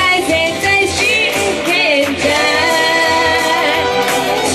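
A woman singing live into a handheld microphone over instrumental pop accompaniment, holding one long note about halfway through.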